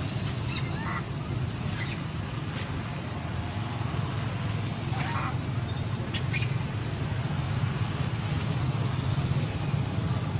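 Long-tailed macaques calling: a few brief, high squeaks and squeals, the clearest about five and six seconds in, over a steady low background rumble.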